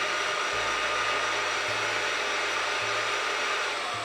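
Milling machine spindle running steadily at about 1600 rpm with the engraving tool fitted, an even motor whir with a few thin high tones.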